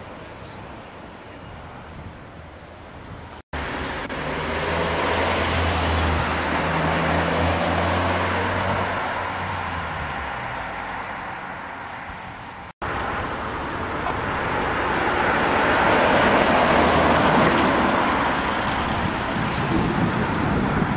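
Road traffic: cars driving past, with engine hum and tyre noise swelling and fading as they go by. The sound breaks off abruptly twice, about three and a half and thirteen seconds in.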